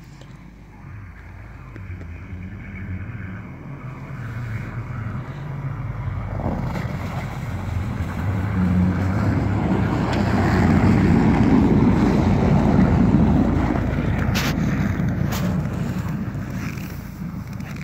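UAZ Patriot SUV driving over snow toward and past the listener: its engine grows louder for about ten seconds, peaks, then fades as it drives away. Two short clicks come shortly after it passes.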